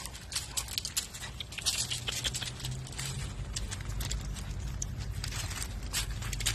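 Steps crunching on loose gravel: a run of irregular short crunches and clicks, with a steady low rumble underneath from about a second and a half in.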